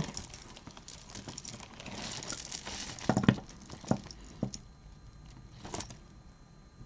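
Jewelry and its packaging being handled: soft rustling, then a few light clicks and taps as pieces are moved.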